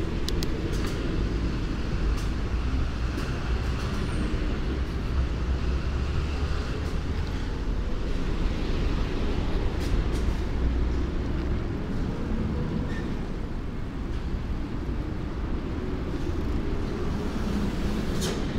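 Steady low rumble of street traffic and road noise heard from a moving bicycle, with a few brief light clicks.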